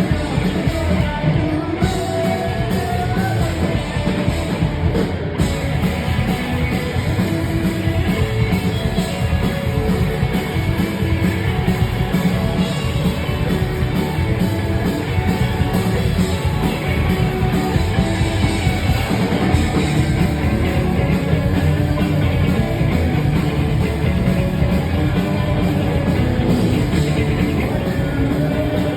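Punk rock band playing live, with drum kit, guitar and singing going without a break.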